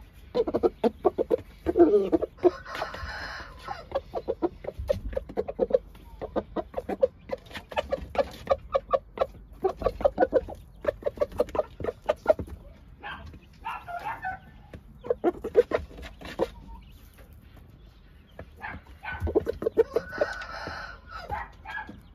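Shamo gamecock clucking in quick runs of short notes, with two longer, higher calls, one about three seconds in and one near the end.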